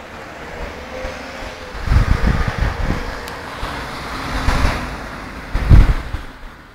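Wind buffeting the microphone in gusts, about two seconds in and again near the end, over the steady hiss of passing road traffic that swells a little past the middle.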